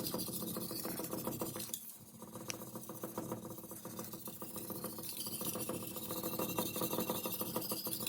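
Steel knife edge scraping back and forth across an 800-grit diamond sharpening stone, a steady gritty rasp that briefly lets up about two seconds in; the strokes are raising a burr on the blade's second side.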